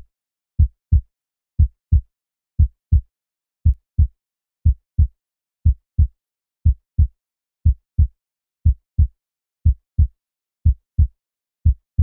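Heartbeat sound effect: a steady lub-dub of paired low thumps, about one double beat per second.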